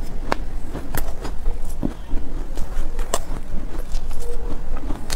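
Close-up soft crunching of powdery, silky cotton ice being bitten and chewed, a scattering of sharp irregular crunches over a low steady hum.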